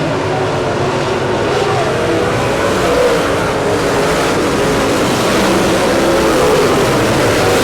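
Dirt late model race cars' engines running at speed, their pitch rising and falling as they go around the track.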